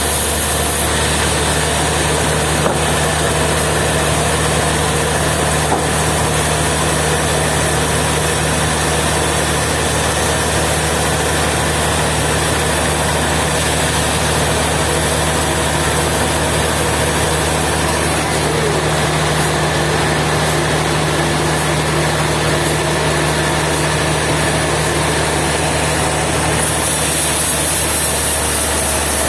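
Sawmill machinery running steadily: a constant engine-like drone with a low, even hum and no cutting strokes or pauses. Near the end the sound shifts slightly, one of the low hum tones dropping out.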